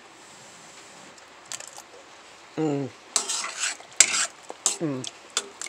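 A metal spoon stirring and scooping thick cranberry chutney in a steel pot, scraping and clinking against the pot, with one sharper click about four seconds in. Twice a short hum from the voice, falling in pitch.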